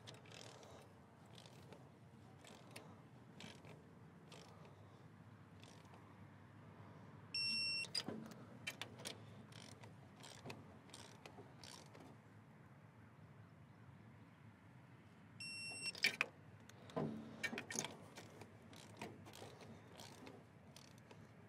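Faint clicks and rattles of spark plug wires being rerouted and clipped into place on an engine. Twice, about eight seconds apart, a short high-pitched electronic beep sounds, each followed by a few louder plastic clacks.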